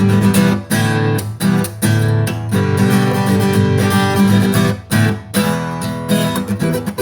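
Acoustic guitar strumming chords, with a few brief stops where the strumming cuts off.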